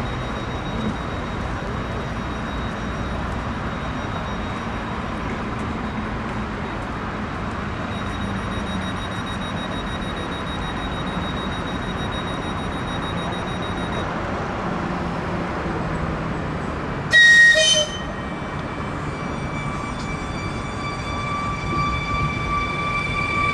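A train horn gives one short, loud blast about two-thirds of the way through. After it a steady whine grows louder as an approaching train draws near.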